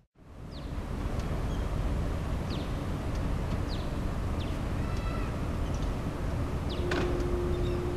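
Low, steady rumble of the car ferry Kuniga's engines as it approaches, fading in after a short gap at the start. A few short bird chirps sound above it.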